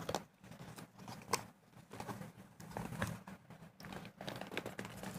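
Hands turning over and opening a small cardboard earbuds box: soft rustles and scrapes with a few sharp clicks, the sharpest about a second and a half in.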